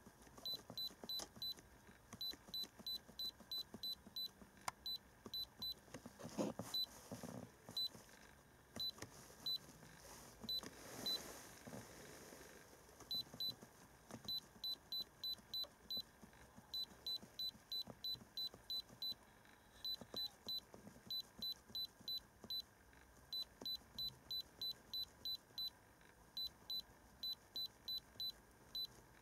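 iCarsoft i930 hand-held scan tool beeping with each button press as its menu is scrolled: runs of short high-pitched beeps, about three a second, with brief pauses between runs. A few soft handling rustles come in between, about six and eleven seconds in.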